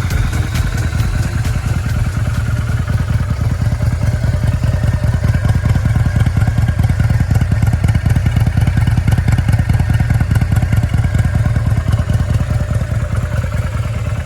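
Kawasaki Vulcan 400 Drifter's V-twin engine idling steadily, its exhaust note a fast, even beat of pulses with no revving. The sound cuts off abruptly at the end.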